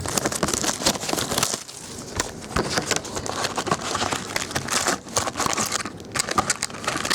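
Plastic wrapping on a box of trading-card packs being torn open and crinkled by hand, a continuous run of irregular crackles and rustles.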